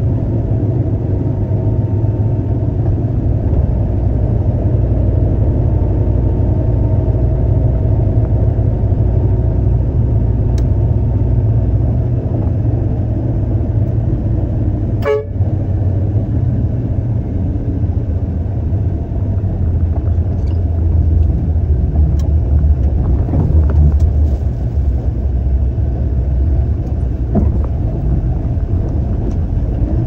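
Concrete mixer truck's diesel engine running with road noise as it drives, a steady low rumble, with a brief click about halfway through.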